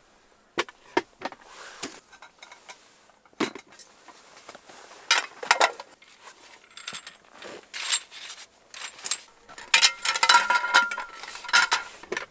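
Aluminium folding camp table being unfolded and set up: scattered clicks and metallic clinks, with a longer rattling clatter about ten seconds in.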